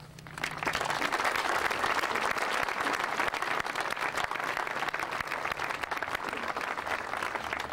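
Audience applauding: many hands clapping. The applause builds up within the first second, then carries on steadily, easing a little toward the end.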